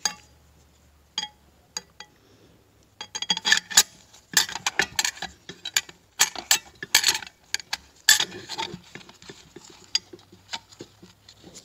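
Metal clutch plates clinking and rattling as they are stacked by hand into a TH350 transmission's clutch drum. A couple of lone clicks at first, then a busy run of irregular clinks from about three seconds in.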